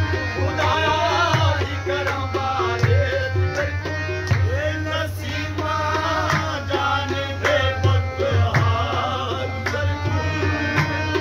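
Two harmoniums playing with men singing, over a hand drum beating a steady rhythm with deep low strokes.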